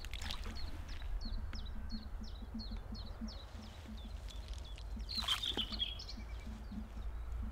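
A small bird chirping over and over in short falling notes, about three a second, over a steady low outdoor rumble. About five seconds in, a short splashy burst as a handful of bait drops into the water.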